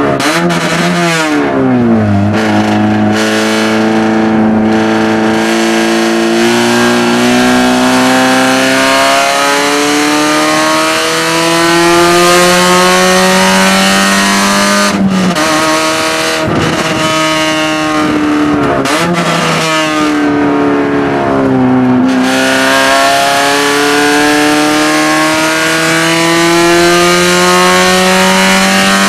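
Race car's engine heard from inside the cabin, revs climbing slowly in long pulls under full throttle. About halfway the revs fall away abruptly, with a few quick blips as it slows and shifts down, then climb steadily again.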